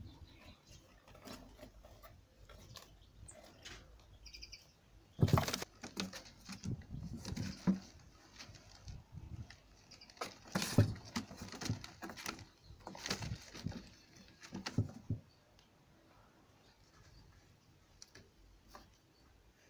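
Kittens tussling and scrabbling on paper leaflets in a cardboard box: a run of scratchy rustles and sharp knocks for about ten seconds, starting about five seconds in, then only faint background.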